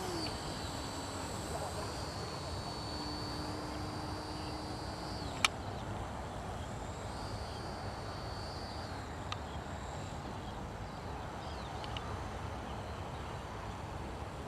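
Radio-controlled plane's electric motor whining overhead in stretches of a few seconds, the pitch gliding as the throttle comes on and off, over steady wind noise. One sharp click about five seconds in.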